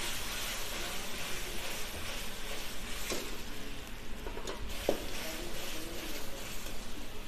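Manchurian sauce sizzling and bubbling in a hot wok while a steel ladle stirs it, with a few light knocks of the ladle against the wok about three to five seconds in.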